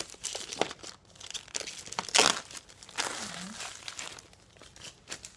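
Clear plastic shrink wrap being torn and pulled off a cardboard box, crinkling and crackling, with one louder rip a little over two seconds in.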